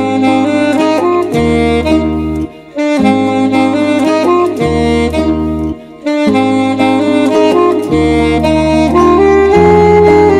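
Saxophone playing a slow melody over a backing track with long held bass notes, breaking off briefly twice.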